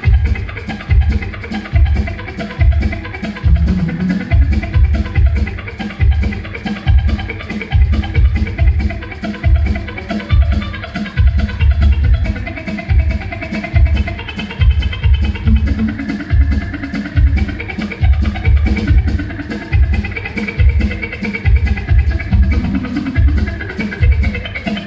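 Live instrumental rock: a Fender Telecaster electric guitar played in fast chicken-pickin' country style over a steady drum-kit beat, loud and driving.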